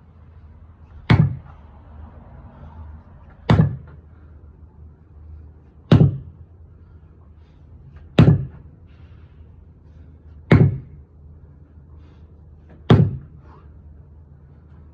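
A 12-pound sledgehammer slamming down onto a tire, six heavy strikes at a steady pace of about one every two and a half seconds, each a sharp thud.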